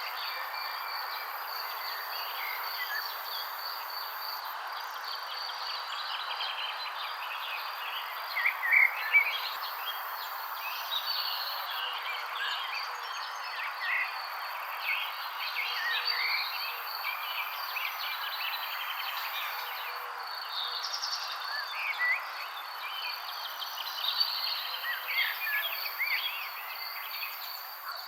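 Wild birds chirping in short, scattered calls over a constant high-pitched trill and a steady hiss; the loudest chirps come about eight to nine seconds in.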